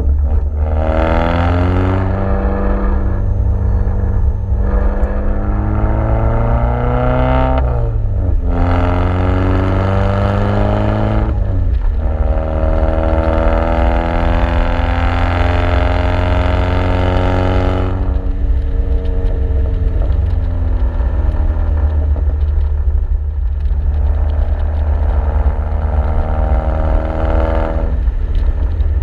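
Exhaust note of a turbocharged 2009 Chevrolet Cobalt SS with a TurboXS RFL exhaust and catless downpipe, heard from outside the moving car. It pulls up through the gears in several rising runs, each cut off by a sharp drop at the shift, then settles into a steady drone at cruise. About two-thirds of the way through it eases off the throttle, and it picks up again near the end.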